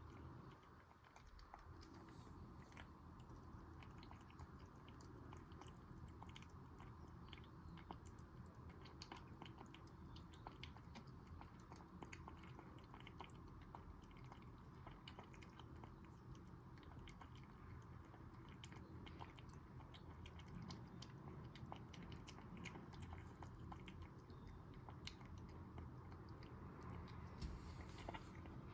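Maltipoo puppy eating soaked, softened kibble: a steady run of small, quick chewing and biting clicks.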